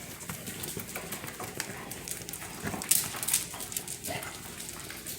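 Basset hound puppies playing on the floor among toys: a scatter of small clicks and taps, loudest about three seconds in.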